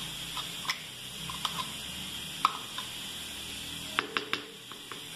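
A metal spoon scraping and tapping against a plastic yogurt pot and the plastic jug while spooning out yogurt: a few short light clicks and knocks, the loudest about two and a half seconds in and a quick cluster about four seconds in, over a steady background hiss.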